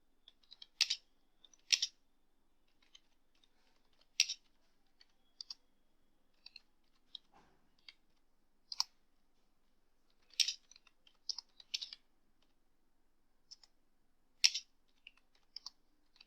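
Keystrokes on a computer keyboard, sparse and irregular: single keys and short runs of a few clicks with pauses of a second or more between them.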